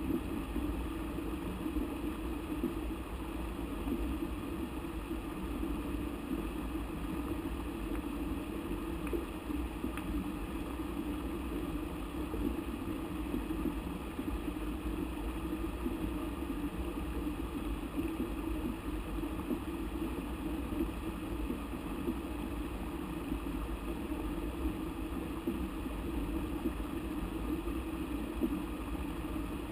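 Steady low rush of river water from nearby rapids, an even roar with no breaks.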